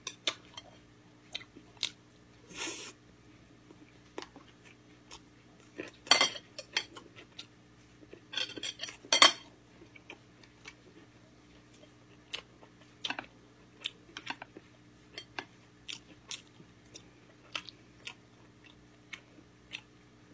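A person eating gamjatang, Korean pork bone soup: soft chewing and scattered small clicks, with a few louder clinks of utensils on the dishes, the loudest about nine seconds in.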